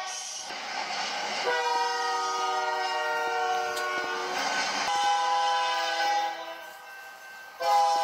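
Train horn sounding several notes at once in long blasts, with a pause and a fresh blast near the end, played back through a television's speaker.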